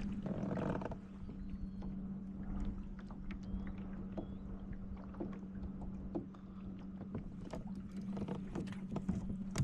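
Fishing kayak while trolling: a steady low hum, with scattered light clicks and knocks of gear being handled.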